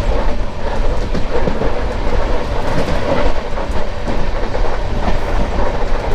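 Saraighat Express passenger train running at speed, heard from on board: a loud, steady rumble and rattle of the wheels on the rails.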